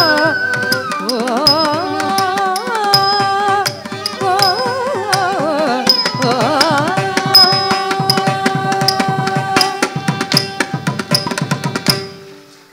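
Carnatic dance accompaniment in raga Mayamalavagowla: a melodic instrument plays sustained notes with wavering, ornamented slides over dense drum strokes and a regular high ringing tick keeping time. The music stops abruptly about twelve seconds in.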